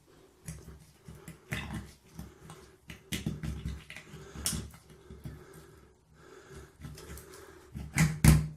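Hand-handling noises at a bathtub: scattered clicks, knocks and rustling, with a louder double knock near the end.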